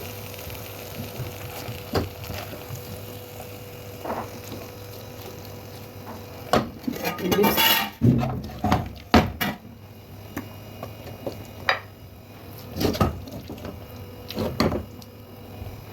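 Kitchen utensil clinking and scraping against a cooking pot and plate as spaghetti is served, in scattered knocks with a busy run about halfway through.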